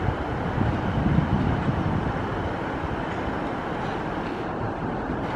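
Merseyrail Class 508 electric multiple unit running slowly over pointwork, giving a steady low rumble of wheels on rail.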